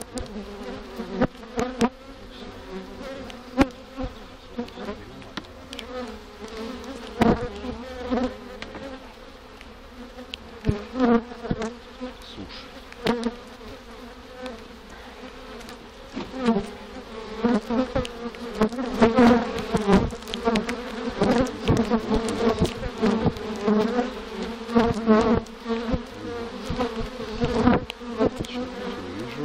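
Honeybees humming steadily over an opened hive, the hum growing louder about halfway through. Short wooden clicks and knocks come on top as frames are pried apart and lifted with a hive tool.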